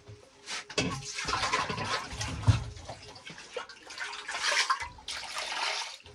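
Water poured from an aluminium pot into a basin of freshly scaled fish, splashing as the fish are rinsed, with a short break near the end before it resumes.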